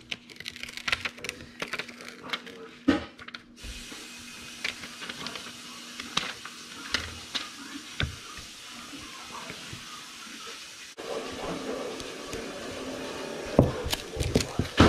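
Thin plastic film and its paper backing being handled and peeled off a clear plastic helmet visor: a run of small crackles and clicks over a steady hiss.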